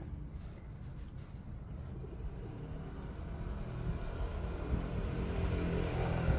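A motor vehicle's engine rumbling in the background, growing louder over the last couple of seconds as it draws nearer.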